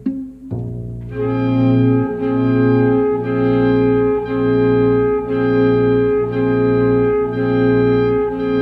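Instrumental music: a held chord over a low note that is re-struck about once a second.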